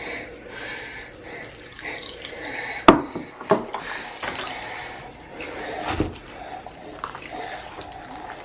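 Water splashing and running in a baby's bath, with a few sharp louder splashes about three seconds in and again about six seconds in.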